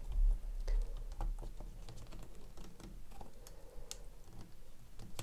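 Scattered small plastic clicks and taps from a laptop keyboard being handled while it is pried loose from its retaining clips, with a sharper click now and then.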